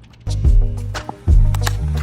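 Background music: an electronic track whose beat and bass come in loudly about a quarter second in, with sharp drum hits.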